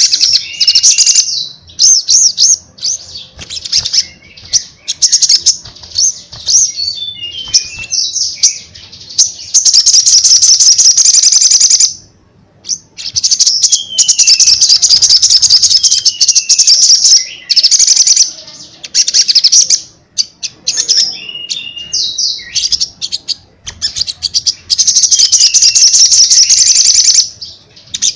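Male olive-backed sunbird (sogon) singing loudly and almost without a break: bursts of rapid high trills and chirps, mixed with short downward-sliding notes, with a pause of about a second near the middle.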